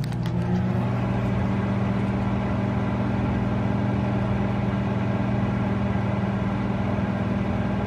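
Microwave oven running with a steady hum.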